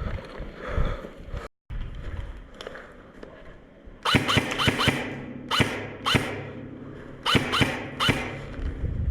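Airsoft guns firing a dozen or so sharp single shots in quick groups of two to five, starting about four seconds in, each with a short echoing tail.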